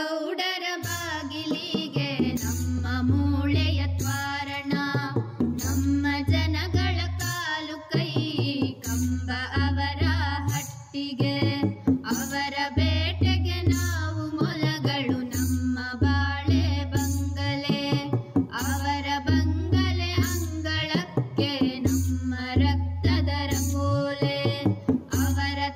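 A song: a voice singing a wavering melody over a steady rhythm of drums and heavy bass.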